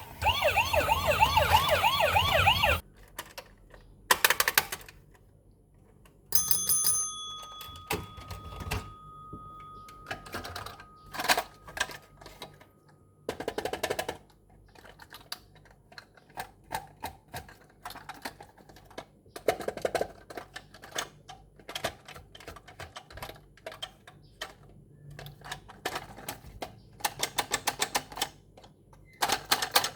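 Quick plastic clicks and taps of toy parts and packaging being handled during an unboxing. A toy's electronic sung tune plays at the start and cuts off about three seconds in, and a steady high electronic tone sounds for several seconds in the first half.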